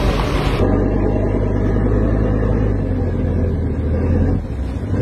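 Twin outboard motors on a sport-fishing boat running under way: a loud, steady low drone that takes over from wind noise about half a second in and dips briefly near the end.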